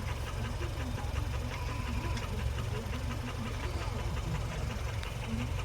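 A motor or engine running steadily, with a strong low hum.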